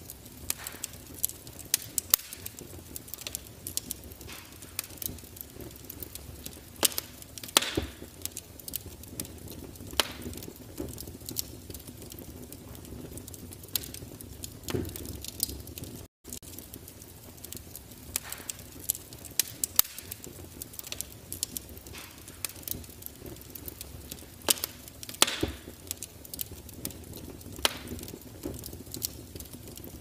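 Wood fire burning in a glass-fronted fireplace insert: irregular crackles and sharp pops over a steady low rush of flame. The sound cuts out for an instant about halfway through.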